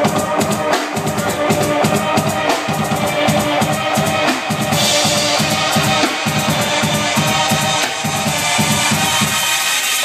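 Live drum kit playing a steady driving beat over electronic music from a DJ's decks. The high end grows brighter about halfway through.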